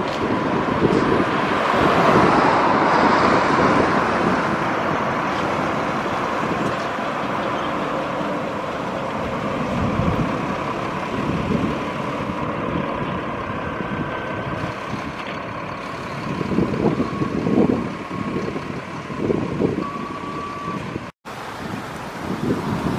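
Double-decker buses driving past at close range, engines running as they pass and pull through a junction, with road and traffic noise. Gusts of wind hit the microphone near the end.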